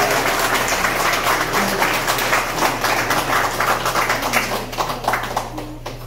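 Audience applauding, many hands clapping at once, the clapping thinning out and dying away near the end.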